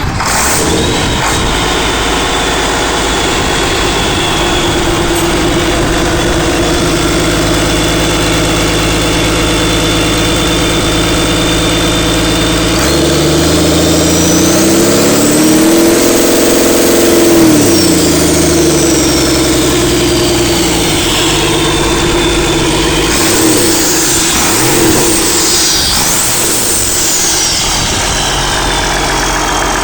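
Freshly overhauled Cummins 8.3-litre six-cylinder diesel from a Case 2388 combine starting up and running at a steady idle. About halfway through it revs up once and then settles back to idle.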